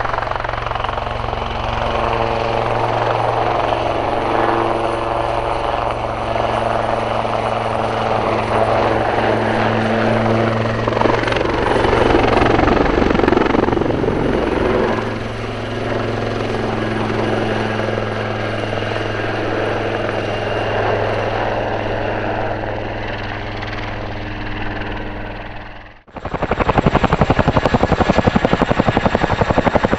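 AW159 Wildcat helicopter flying past with a steady rotor and turbine drone, louder around the middle. Near the end, after an abrupt cut, a Boeing CH-47 Chinook's tandem rotors beat with a rapid, loud, even thudding.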